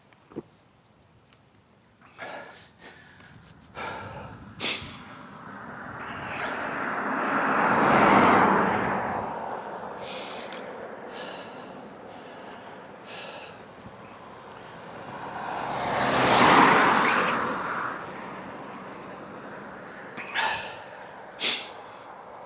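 Two motor vehicles passing one after the other, each swelling up and fading away over several seconds, the first about eight seconds in and the second about sixteen seconds in. Short, sharp breaths from the cyclist fall in between.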